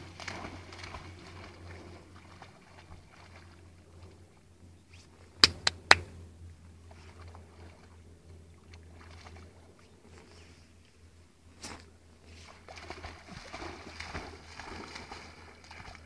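A dog splashing as it wades and swims through shallow lake water, over a low steady hum. Three sharp clicks close together about five and a half seconds in are the loudest sounds, and a single click comes about two-thirds of the way through.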